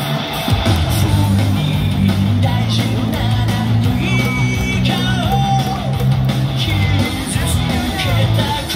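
Pitcher's entrance music played over a baseball stadium's public-address system: a rock-style song with guitar and singing, at a steady loud level.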